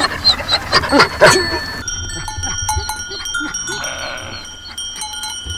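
Bells worn by sheep in a flock, clanking and ringing at several different pitches that overlap. A run of sharp knocks comes in the first second or two.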